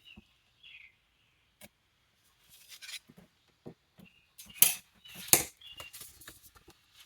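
Rustling paper, light taps and clicks from handling planner pages and sticker sheets, with two sharper crackles a little past halfway.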